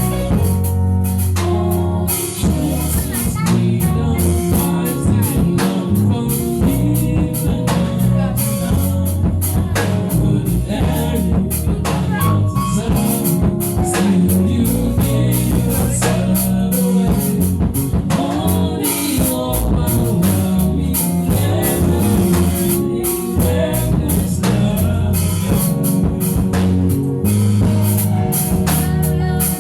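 Music: a song with singing over a drum kit.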